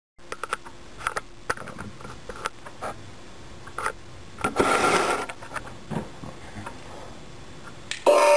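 Small clicks, taps and scrapes of a GE 19209 wireless doorbell unit being handled, with a brief rustle about halfway through. Near the end its electronic chime starts suddenly and loudly as a steady tone with several pitches.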